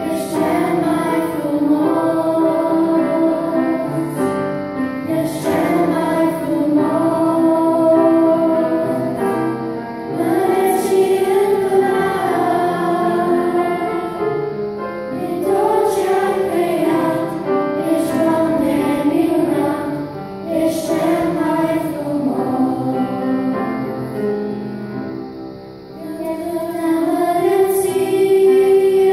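A group of five children singing a song together into handheld microphones, in long held phrases with a short break between phrases.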